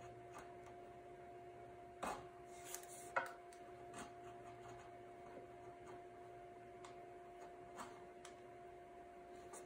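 Faint scraping and a few light clicks of a hand chisel paring a facet along the edge of a wooden seat, mostly about two to four seconds in and once more near the end, over a low steady hum.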